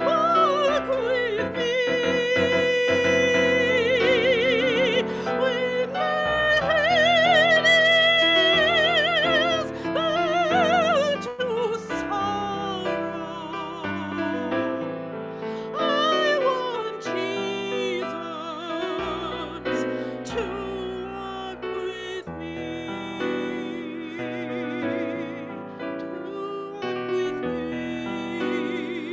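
Classical-style solo singing with wide vibrato, held notes and melodic runs, over piano accompaniment.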